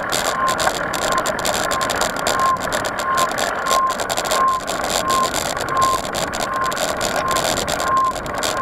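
Mountain bike ride on a dirt trail: steady wind and tyre noise with frequent small rattles and clicks from the bike. A short, high electronic beep repeats about twice a second over it.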